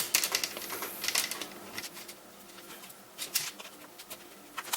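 Plastic clicks and snaps as a laptop screen bezel is pried off and its clips release: a quick run of clicks in the first second, then a few scattered ones.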